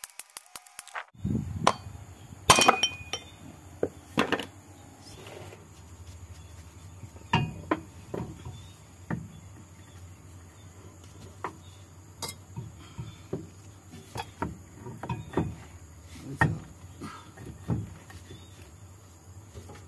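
Hand tools and steel bolts clinking and knocking irregularly against a propeller shaft center bearing mount while it is being bolted up under a pickup. A quick run of even clicks in the first second gives way to scattered sharp knocks over a steady low hum.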